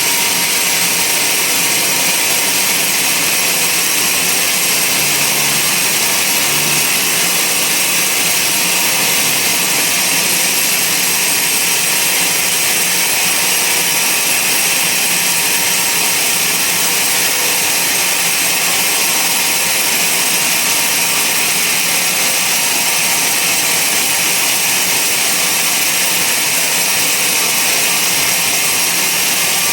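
Band sawmill running steadily through a log: a loud, unbroken machine noise with a high whine from the blade that holds level throughout.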